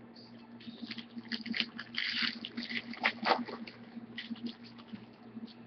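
A trading-card pack wrapper crinkling and tearing as a pack is opened by hand, a run of small crackles that is busiest in the middle.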